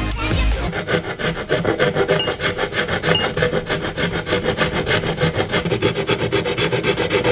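Hand file scraping back and forth on the edge of an aluminium engine valve cover in quick, even strokes, rasping off filings.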